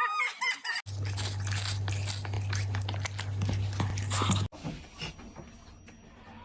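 Close-up chewing and crunching with a steady low hum beneath it, stopping abruptly about four and a half seconds in, after which only faint scattered clicks remain.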